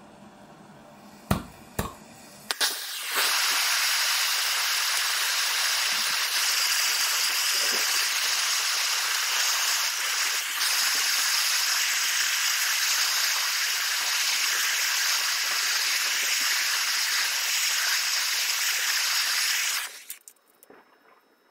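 A few sharp clicks, then a Shinfuji handheld gas torch burning with a loud, steady hiss as it heats a stainless pipe and its fitting red-hot to melt the silver braze ring. The flame cuts off suddenly near the end.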